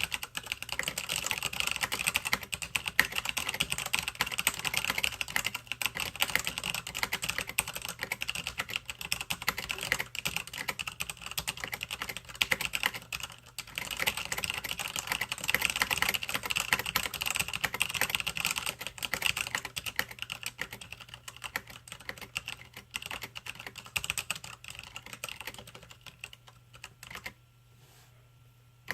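Typing on a Cooler Master MasterKeys Pro S mechanical keyboard with tactile Cherry MX Brown switches: a dense, continuous patter of keystrokes. There is a brief lull about halfway through, and the typing stops shortly before the end.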